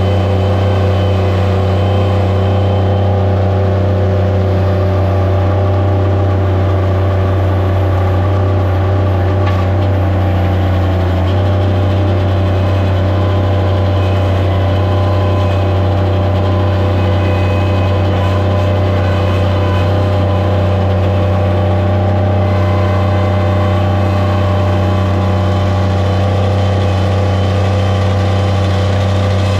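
Skid steer loader's engine running loudly at a steady speed, with its pitch holding nearly constant throughout.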